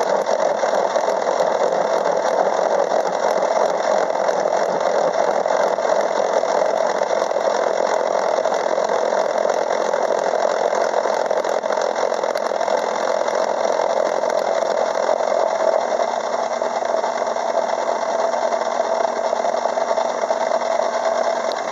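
Craftsman 6-inch metal lathe running a gear cutter that mills a tooth space into a steel gear blank, fed slowly by hand through the cross feed. A steady machine running sound.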